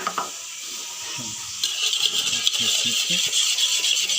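A click, then about a second and a half in a steady sizzle with fine crackling starts abruptly: hot oil frying in a pan.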